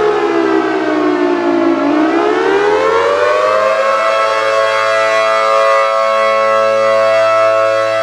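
Civil defense siren sounding. Its pitch falls for about two seconds, climbs again over the next two, then holds steady.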